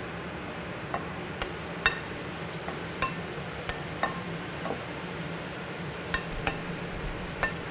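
Metal kitchen tongs clinking against a serving bowl as orzo and watercress are tossed together: about ten sharp clinks at uneven intervals.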